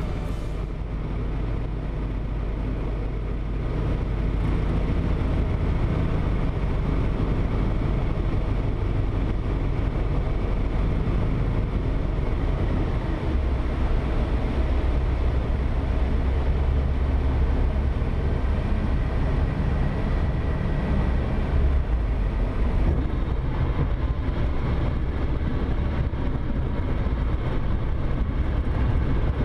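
Cockpit noise of a light single-engine propeller aircraft at low power on approach and landing roll: steady engine and propeller drone mixed with airflow noise, its low note shifting about a third of the way in and again later.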